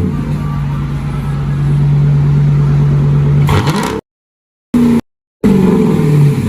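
Dodge Charger R/T's Hemi V8 exhaust running at a steady raised idle, then blipped up about three and a half seconds in. After two brief cut-outs it comes back revved and settles downward in pitch toward idle.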